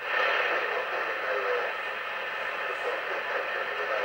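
TTI TCB-660 CB radio's loudspeaker receiving a weak, distant FM station: steady hiss with a faint voice just audible underneath. The noise jumps up right at the start.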